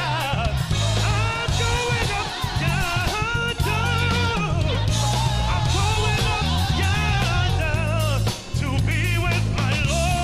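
Live gospel choir singing behind a male lead vocalist on a microphone, backed by a band with drums and a steady bass line.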